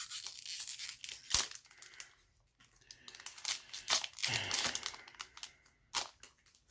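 Foil trading-card booster pack being torn open and crinkled in the hands. Two bursts of rustling, with a sharp click about a second and a half in and another near the end.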